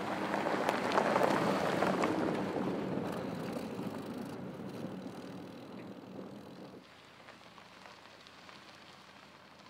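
Porsche Cayenne Turbo driving past on a dusty dirt and gravel track: tyres crunching over loose gravel with stones popping, over a low engine sound. Loudest about a second in, then fading as it pulls away; it drops off at about seven seconds.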